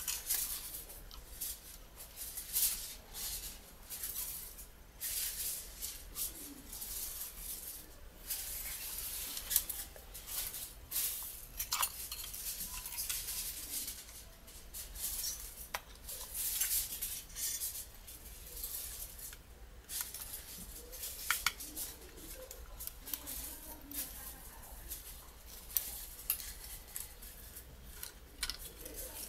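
Tweezers and fingers working a partly disassembled Canon EOS 60D camera body: irregular small clicks, scrapes and light metallic clinks of its metal shield plate, frame and parts.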